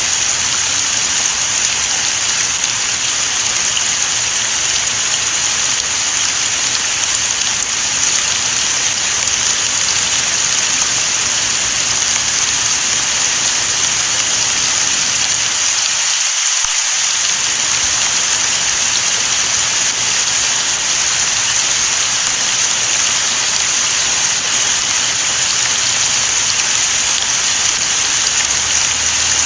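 Steady rain falling as a dense, even hiss that hardly changes.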